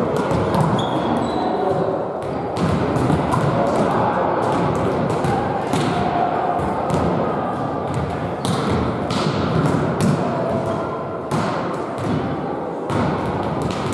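Volleyballs being struck by hands and bouncing on the hall floor, many irregular slaps and thuds, over a background of voices in the sports hall.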